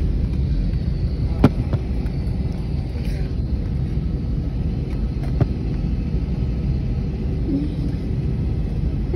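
Steady low rumble of an airliner heard from inside the passenger cabin, engines running on the ground before takeoff. Two sharp clicks cut through it, about a second and a half in and again about five seconds in.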